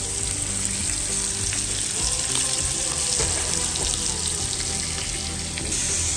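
Lamb shoulder steak searing in hot grapeseed oil in a Mauviel skillet: a steady, dense frying sizzle.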